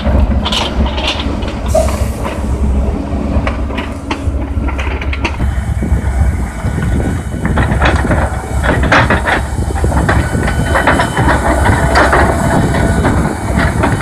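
Heavy wheeled military vehicles driving past at close range: a steady low engine rumble with repeated rattling and clanking. In the later part the source is a DANA 8x8 self-propelled howitzer rolling by.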